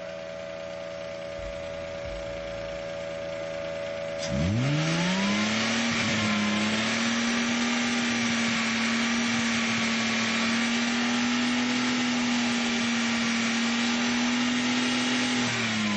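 Electric air compressor switching on about four seconds in, its motor spinning up quickly to a steady hum with a loud rush of air as it blows into the car's engine intake. The hum starts to wind down near the end, over a faint steady engine hum.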